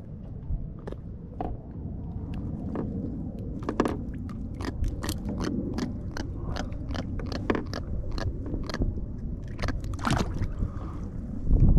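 Rapid small clicks and scrapes of fishing pliers and a hook as a small hooked fish is worked free by hand, several clicks a second through the middle, over a low rumble of wind and water. A louder low thump comes near the end.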